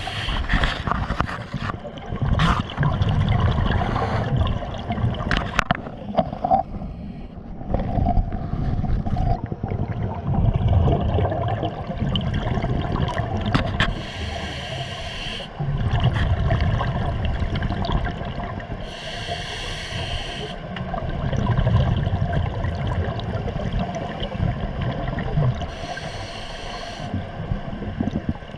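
A scuba diver breathing through a regulator underwater: a short hiss with each inhalation about every five to six seconds, and the rumble of exhaled bubbles between them. A few sharp knocks sound in the first few seconds.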